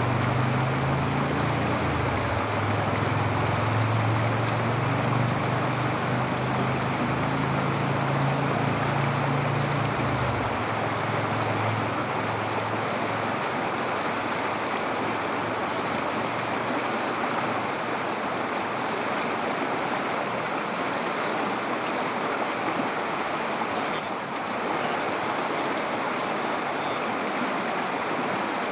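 River water rushing steadily over a rocky bed. A low hum runs underneath for about the first ten seconds and cuts off suddenly.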